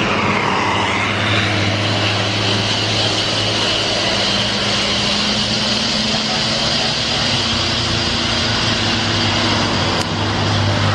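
Heavy vehicle's diesel engine, most likely a bus, running close by: a steady low drone with tyre and road noise. A sharp click comes near the end.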